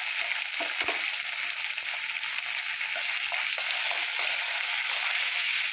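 Tomato-and-ginger paste sizzling steadily in hot mustard oil in a kadhai, stirred with a spoon.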